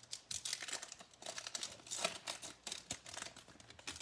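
Baseball card pack wrapper crinkling and tearing as it is opened, a run of irregular crackles.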